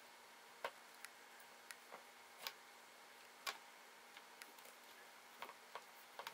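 Light, irregular clicks and taps on clear acrylic cat shelves as a cat plays with a toy snake, about a dozen in all, the sharpest under a second in and about three and a half seconds in, over a faint steady room hum.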